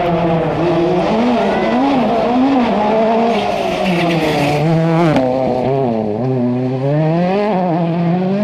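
Rally car engine revving hard, its pitch repeatedly rising and dropping with throttle lifts and gear changes as the car drives the stage. It grows harsher and louder as the car comes close, then the harshness cuts off abruptly just after five seconds in.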